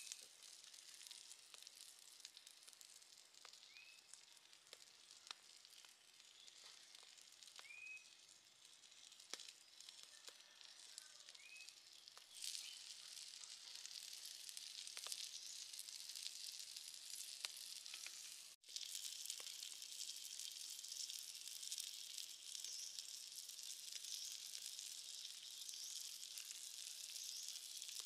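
Skewered whole shrimp sizzling faintly on a hot stone over a wood fire, with scattered small pops. The sizzle grows louder and denser in the second half and cuts out for a moment about 18 seconds in.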